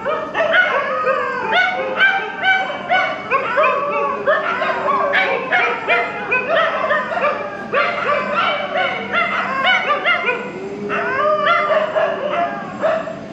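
A group of dogs barking, yelping and howling together, several voices overlapping, with a couple of longer howls, one about four seconds in and one later on. They are probably fighting over territory or defending their puppies.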